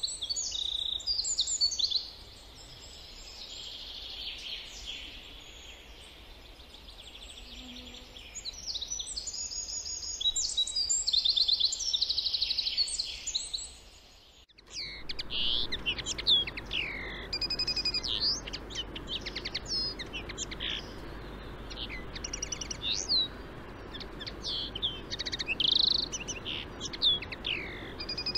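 Wild songbirds chirping, trilling and whistling in the trees around the nest, many overlapping high calls. About halfway through the sound cuts out briefly, then the calls go on over a steady low hiss.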